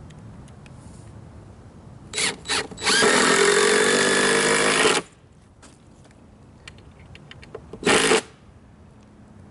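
Power drill run in short trigger pulses: two quick blips, then a run of about two seconds with its pitch rising slightly, and another brief burst near the end.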